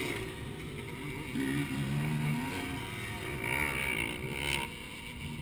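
Motocross dirt bike engines revving and backing off as the bikes race around the track, their pitch rising and falling.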